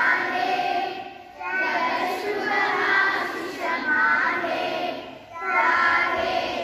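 Young children singing together in phrases, breaking off briefly twice, about a second in and again about five seconds in.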